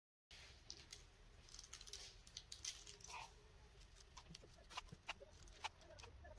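Sesame seeds being sprinkled by hand onto pastry turnovers: faint, irregular little ticks and pattering.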